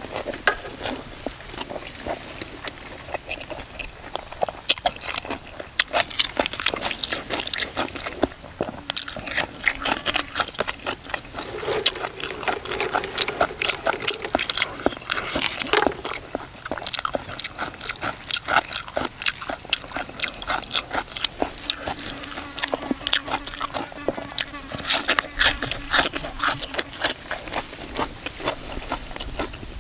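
A person chewing a mouthful of pounded cucumber salad with boiled egg and fresh basil: dense, irregular crisp crunches and wet mouth clicks, several a second.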